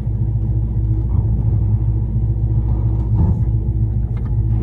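Box Chevy's engine idling with a deep, steady rumble.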